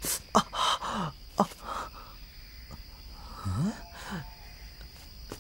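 A young man's short breathy gasps and groans, several in quick succession and then two more a little past halfway.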